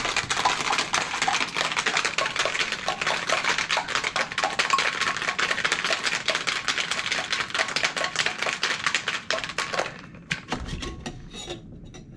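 Ice rattling hard inside a stainless steel tin-on-tin cocktail shaker, shaken fast and steadily with the whisky sour ingredients. Near the end the shaking stops, leaving a few scattered clinks.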